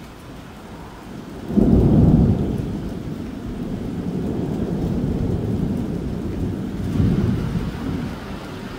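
Long rolling thunder: a sudden loud low rumble about a second and a half in, rolling on with a second surge about seven seconds in and easing near the end, over steady rain.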